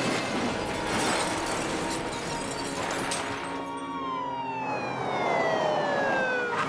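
A car turned over onto its roof scrapes and slides along the pavement with crunching metal and breaking glass, dying away about three and a half seconds in. Music plays over it, and near the end a long tone slides steadily down in pitch.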